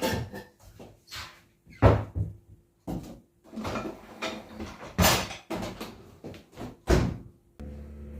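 Kitchen cupboard doors opening and closing, with things knocked about on the shelves: a string of sharp bangs and clatters, the loudest about two, five and seven seconds in.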